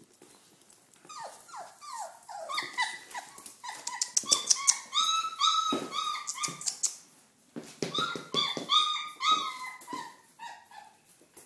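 A litter of four-week-old Doberman pinscher puppies whining and yelping: many short, high cries overlapping one another, with a brief lull a little after halfway.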